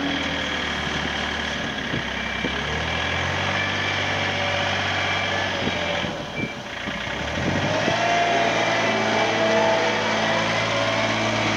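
Diesel engine of a 2013 Yanmar V3-6 compact wheel loader running as the machine drives about. The sound dips briefly about six seconds in, then the engine speeds up and runs louder to the end.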